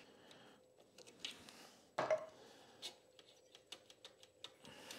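Faint, scattered clicks and light knocks of a screwdriver and hands working a carburetor loose from a two-stroke motorcycle engine, with a slightly louder knock about two seconds in.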